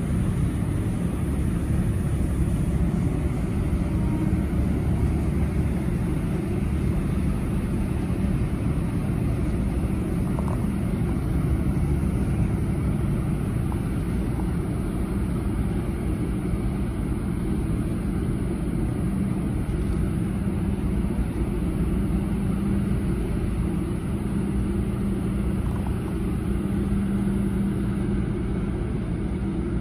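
Steady low drone of a vessel's engine, with several humming tones held under a rumble.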